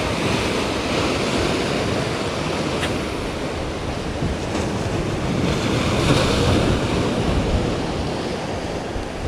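Wind buffeting the microphone over a steady wash of sea waves.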